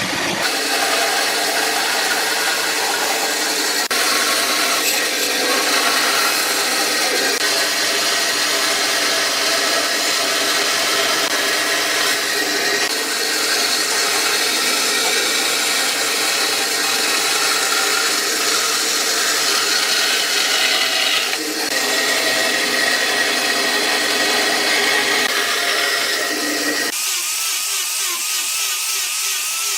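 Electric power tool running steadily while working wood, with a steady whine over the cutting noise. Near the end the sound changes, losing its low end.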